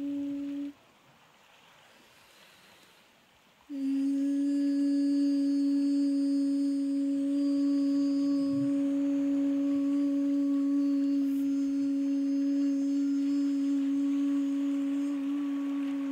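A steady low pure tone with a fainter overtone an octave above, holding without wavering. It cuts out about a second in, leaving near silence, and comes back suddenly a few seconds later, with faint high thin tones above it.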